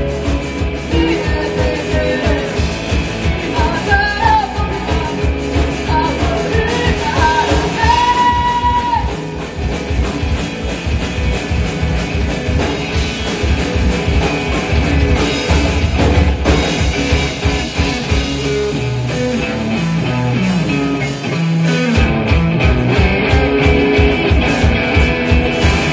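A rock band playing live: electric guitars and drums with a sung vocal line, the low end dropping out for a moment about three-quarters of the way through before the full band comes back in.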